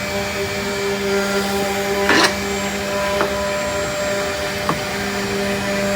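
CNC router spindle running steadily with a constant hum, cutting wood, with a short louder rasp about two seconds in and a couple of faint sharp ticks later.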